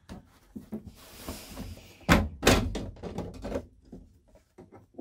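Paper towel crinkling against a plastic RV bathroom vent-fan cover, then two sharp plastic thunks about two seconds in as the cover pops loose, followed by lighter handling knocks.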